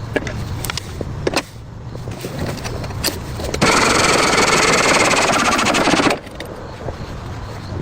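Scattered metallic clicks and knocks, then a power tool runs at full speed for about two and a half seconds, starting and stopping abruptly.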